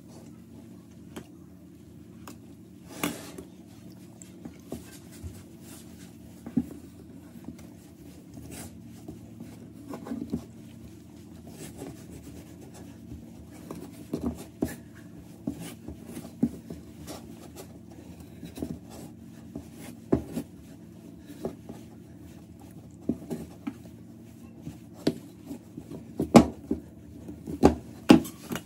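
A wooden spoon scraping and tapping against a frying pan while stirring and folding a thick carrot and milk-powder barfi mixture into a dough. There are irregular scrapes and knocks, louder and more frequent near the end, over a steady low hum.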